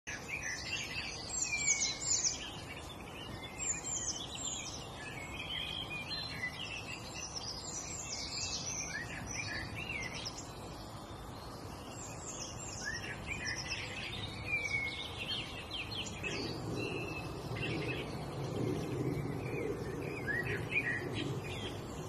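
Songbirds chirping and singing: a busy, continuous mix of varied whistles, trills and short calls from several birds at once. A faint low rumble joins in about three-quarters of the way through.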